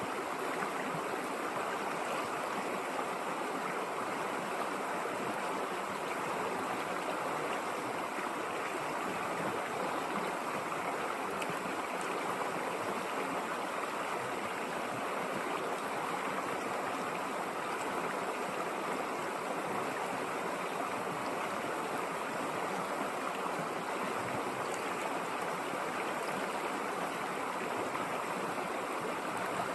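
River water flowing, a steady, even rush of running water that does not change.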